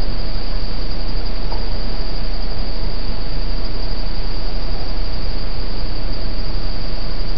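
Night insects chirring without a break in one high, steady tone, over a loud, even hiss.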